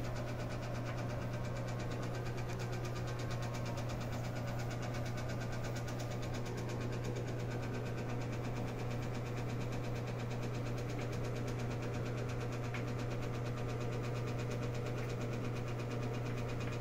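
Steady low machine hum, constant in level throughout.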